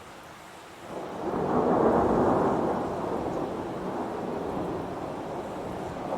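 Heavy rain with a roll of thunder that swells about a second in, peaks, then slowly dies away.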